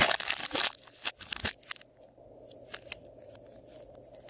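Glossy slime squeezed in the hands: a dense run of wet crackles and pops in the first half-second or so, a few louder sticky pops a second later, then only scattered faint clicks.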